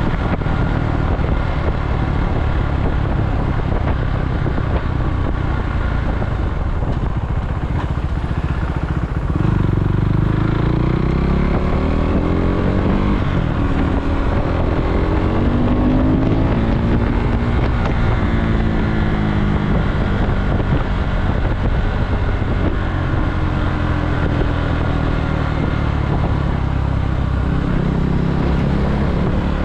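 KTM Duke motorcycle engine running under way, with wind noise on the microphone. About nine seconds in the engine note gets louder and climbs in pitch several times as the bike accelerates, then settles.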